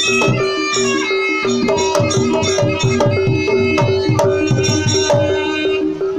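Javanese jaranan gamelan music: quick hand-drum strokes with sliding pitch, busiest in the middle, under a high, bright melody line and a steady held ringing tone.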